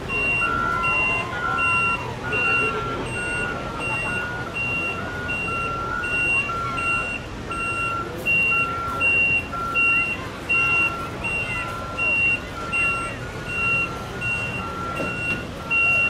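Backup alarms on reversing fire-rescue trucks and ambulances, beeping steadily a little faster than once a second, with more than one beeper overlapping at slightly different pitches. The vehicles' engines run underneath.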